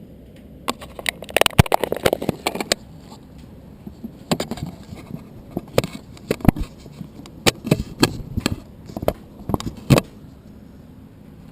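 GoPro Hero2 camera rattling in its mount and housing: irregular bursts of sharp plastic clicks and clatter at the microphone, loudest about two seconds in and again near the end.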